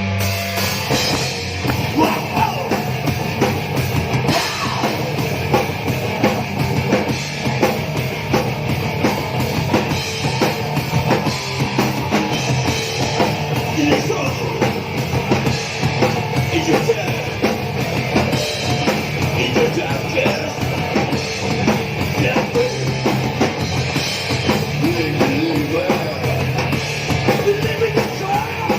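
A crust punk band playing live: fast, dense drumming with distorted guitar and bass throughout.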